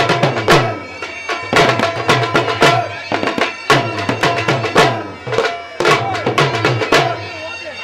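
Dhol drum playing traditional Hazara dance music, a heavy stroke about once a second with quicker lighter strokes between, under a steady droning wind instrument.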